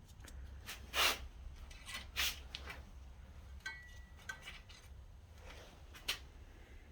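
Light handling noises: a few short knocks and rubs, the sharpest about a second in, just after two seconds and near the end, over a low steady hum.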